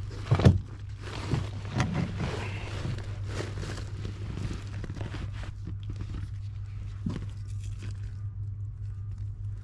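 Handling knocks and rustling as a camera is moved on a plywood work platform, with one loud thump about half a second in and scattered smaller knocks and scrapes after it. A steady low hum runs underneath.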